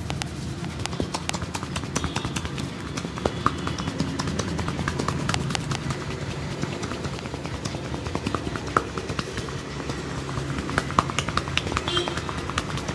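Quick, irregular taps and claps of a barber's hands during a massage, over a steady low rumble of street traffic.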